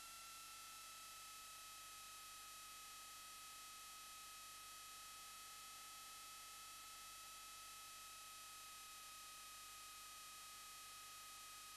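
Near silence: a steady hiss with a faint, thin high whine held throughout.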